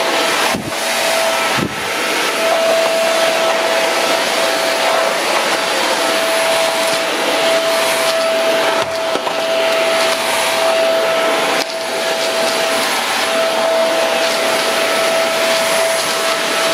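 iWoly cyclonic stick vacuum running steadily with a high whine over its airflow noise, dipping briefly a few times as the floor head is pushed around. Its cyclone bin is getting full, which leaves it having a bit of trouble picking up.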